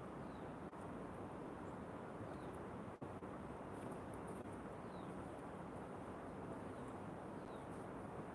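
Outdoor nature ambience with a faint steady rushing noise, over which a bird gives a short falling call four times, about every two and a half seconds.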